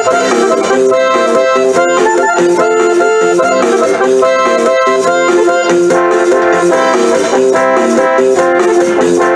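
Live band playing an up-tempo instrumental passage of a cumbia-style song: electronic keyboards carry the melody over a steady percussion beat, with no singing.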